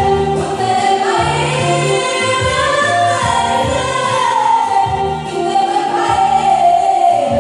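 Woman lead singer singing a worship song into a microphone, with a small backing choir and an electronic keyboard playing repeated bass notes.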